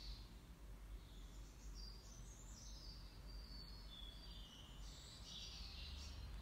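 Near silence: quiet room tone with a low hum, and faint bird chirps around the middle and again near the end.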